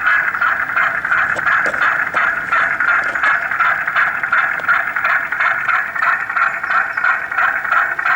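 Radio-controlled model fishing boat running on the water: a steady, rapidly fluttering mechanical buzz that keeps up without a break.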